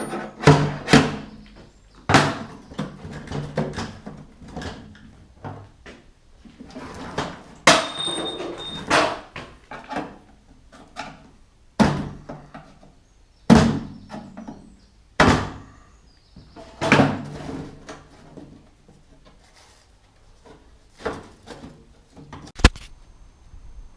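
Parts of a car heater unit being handled and taken apart by hand: irregular knocks, clunks and scraping, with a few sharp louder knocks and a brief metallic ring about eight seconds in.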